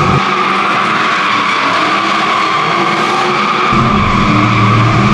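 Tyres squealing steadily as a V8-swapped Nissan S13 drifts, with the V8 engine running underneath. The engine's deep note drops out a moment in and comes back after about three and a half seconds, while the squeal carries on.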